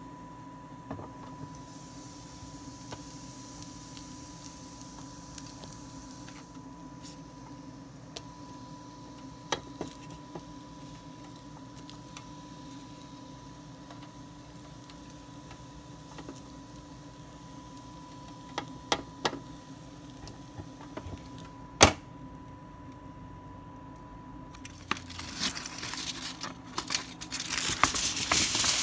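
Quiet handling with a few isolated sharp clicks over a faint steady hum, the loudest click a little past two-thirds of the way through. Near the end, aluminium foil is pulled from its box and crinkles, growing louder.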